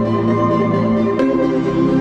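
Background music of slow, held chords, moving to a new chord a little past the middle.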